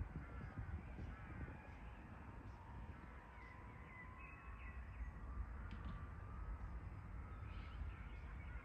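Birds calling repeatedly in short chirps over a low rumble, with a faint thin whine slowly rising in pitch through the middle.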